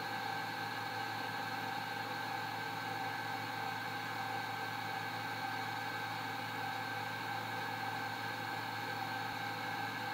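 Steady machine hum with a constant high whine over a hiss, unchanging in pitch and level, like a motor running.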